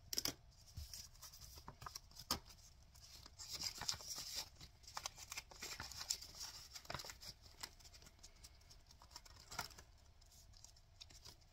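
Faint rustling of paper and clear plastic binder pouches, with scattered light clicks and taps as the cash and a savings-challenge card are handled.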